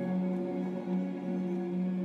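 Film-score music holding one long chord of steady tones.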